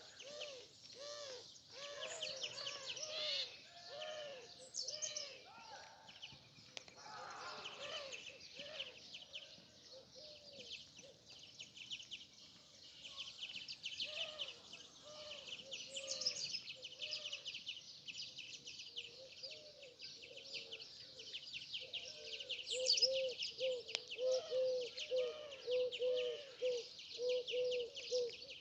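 Many small birds chirping continuously in a dense, high-pitched chorus. Over it, a lower call repeats in quick runs of arched notes, most steadily near the end.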